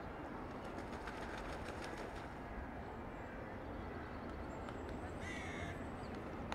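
Town street ambience: a steady low rumble of traffic and background noise, with a run of light ticks in the first two seconds and a brief falling cry about five seconds in.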